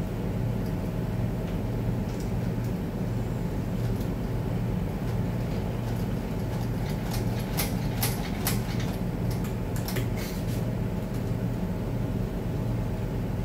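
Steady low machine hum throughout, with a run of sharp, light metallic clicks from about seven to ten and a half seconds in as a T-handle wrench is worked on an automatic transmission's aluminium valve body.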